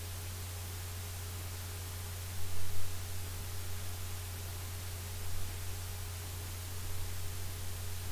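Steady hiss with a low, constant hum and no music, with a brief louder bump about two and a half seconds in.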